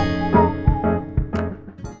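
Background music with a plucked guitar, fading out near the end.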